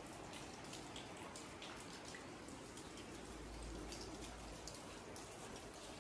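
Rain dripping: scattered drops landing on wet concrete and puddles over a faint steady patter, with a brief low rumble around the middle.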